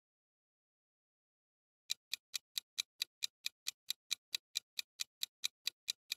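Clock-tick sound effect of a quiz countdown timer, counting down the time to answer: even, sharp ticks about four to five a second, starting about two seconds in.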